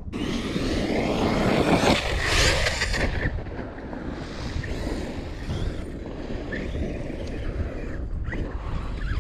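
Traxxas Sledge 1/8-scale RC monster truck being driven hard on dirt: its brushless electric motor and tyres on the dirt, loudest over the first three seconds, then quieter.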